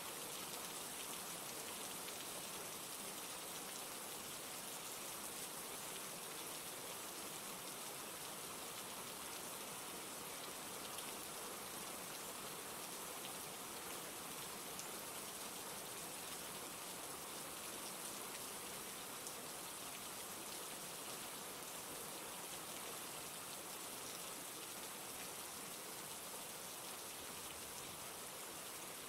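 Steady rain falling, an even hiss with fine scattered drop ticks.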